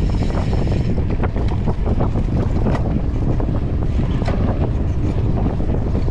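Wind buffeting an action camera's microphone during a mountain-bike ride, a steady low rumble, with frequent small knocks and rattles from the bike over rough ground. A brief high-pitched squeal sounds in the first second.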